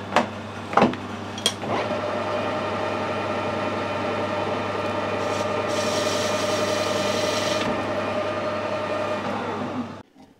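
A few knocks, then a metal lathe starts and runs steadily with a motor whine. About six seconds in, a high hissing cut lasts about two seconds as a carbide insert tool chamfers the edge of a threaded fitting. The lathe winds down near the end.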